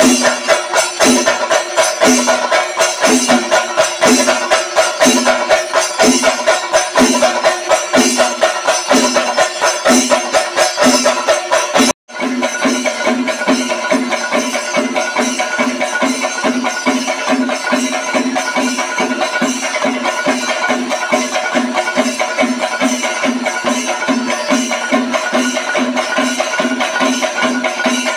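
Percussion music: a pitched drum beating about once a second over steady jingling. The music cuts out suddenly about twelve seconds in and comes back with the drum beating about twice as fast.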